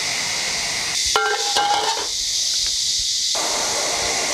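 Metal ladle clinking and scraping against the wok and plate as the sauced tofu is scooped out, with a few short ringing clinks about a second in, over a steady hiss.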